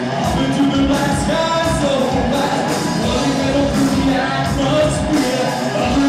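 Heavy metal band playing live: electric guitar, bass guitar and drums with a steady beat, and a singer's voice over them.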